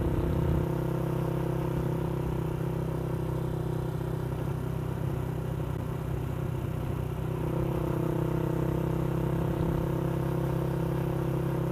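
Motorcycle engine running steadily while riding, easing off slightly through the middle and picking back up about two-thirds of the way through.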